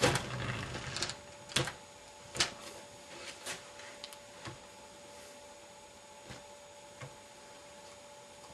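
Handling noise of a taped magnet being worked by hand against a small rotor on a wooden stand: a burst of rattling in the first second, then sharp clicks and knocks, the loudest about one and a half and two and a half seconds in, thinning to faint ticks. A faint steady hum runs underneath.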